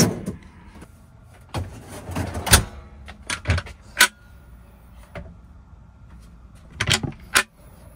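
A series of knocks, clicks and sliding clatter from a camper van's fridge drawer and overhead cabinet door being handled. There is a sharp latch click about four seconds in.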